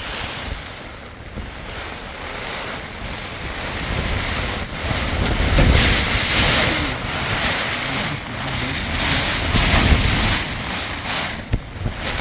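Storm wind blowing hard in gusts, buffeting the microphone; it swells to its strongest about halfway through and again near the end.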